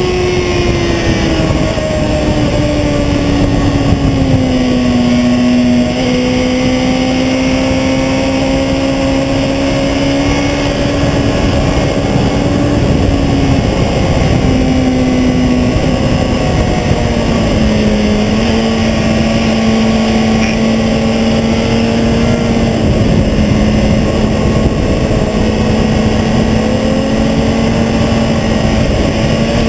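Sport motorcycle engine running at track speed, its note drifting down and stepping lower a few times through the corners, under heavy wind and tyre-road rush on a camera mounted low by the front wheel.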